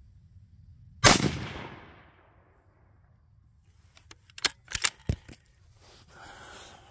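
A single rifle shot about a second in, its report dying away over about a second. About three seconds later comes a quick run of about five sharp clicks.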